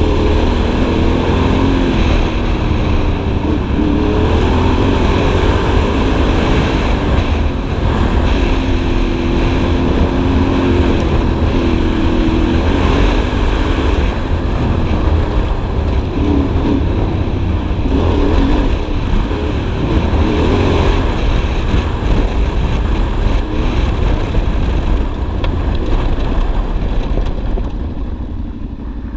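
Yamaha Ténéré 700 World Raid's parallel-twin engine running under way, the revs rising and falling as it rides, easing off near the end.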